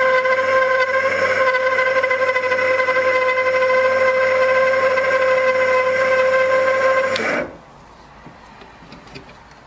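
Proxxon mini metal lathe running with its chuck spinning: a steady motor and spindle whine that stops abruptly about seven seconds in, followed by a few faint clicks.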